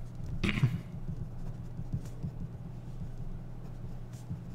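Marker pen writing capital letters on a white sheet: a run of short, light, irregular strokes.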